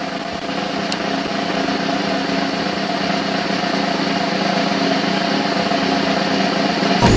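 Dual-sport motorcycle engine running steadily at idle, slowly growing louder, then breaking into a sudden loud rev right at the end.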